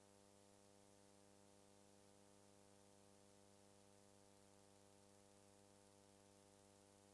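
Near silence: a faint, steady hum and hiss with no other sound.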